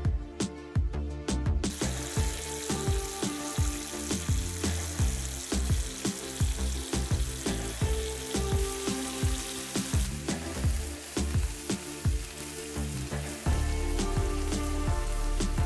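Shrimp sizzling in hot olive oil in a cast iron pan, a steady hiss that starts suddenly about two seconds in.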